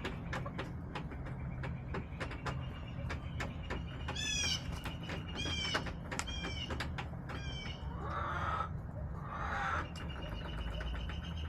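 Backyard hens in the coop: three short high-pitched calls about four, five and a half, and seven seconds in, over frequent sharp tapping from pecking, with two short rough noisy sounds near the end.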